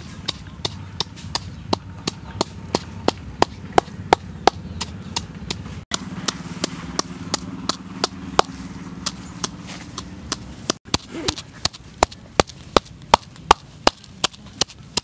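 Wooden pestle pounding chilies in a coconut-shell mortar: sharp, even knocks about three a second, the rhythm breaking off briefly twice.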